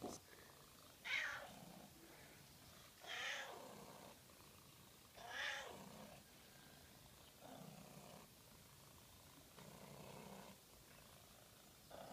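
Domestic cat making an odd, strange-sounding meow over and over: three louder calls about two seconds apart, then three softer, lower ones.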